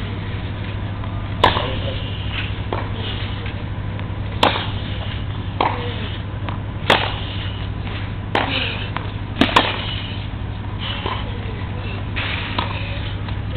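Tennis ball struck back and forth with rackets in a rally: sharp pops roughly every one and a half seconds, the louder strokes alternating with fainter ones, over a steady low hum.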